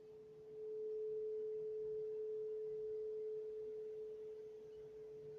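A steady tone held at one pitch, getting louder about half a second in.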